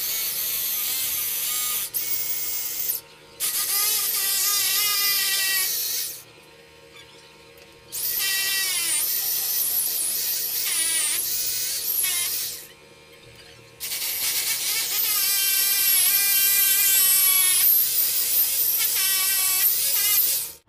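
Rotary hammer drill with a 16 mm bit boring through ceramic wall tile, running in four long bursts with short pauses between them. Its whine wavers in pitch as the bit loads up in the tile.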